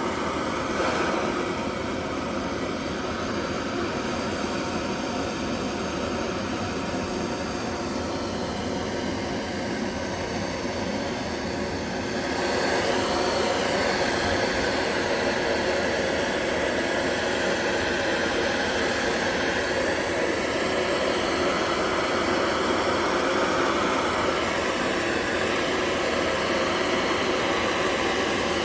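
Handheld propane torch burning, a steady rushing roar as the flame chars the surface of the carved wood. It grows louder about twelve seconds in and then holds steady.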